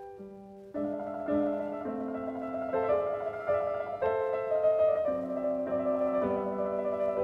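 Background piano music: a melody over changing chords, quieter for a moment at the start, then fuller from under a second in.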